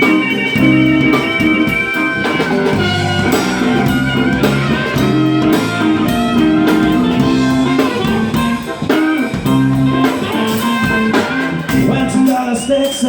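Blues band playing live, an instrumental passage led by electric guitar over a repeating low riff and drum kit.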